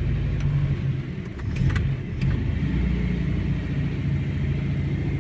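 A VAZ 'kopeika' engine idling on the choke just after a cold start, its level dipping briefly about a second in and then picking up again.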